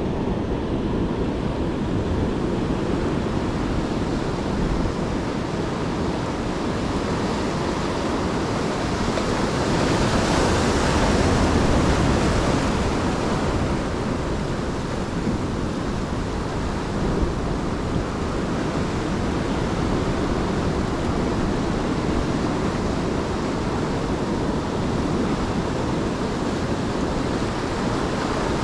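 Ocean surf washing onto the beach, with wind rumbling on the microphone; one wave swells louder about ten seconds in, then eases.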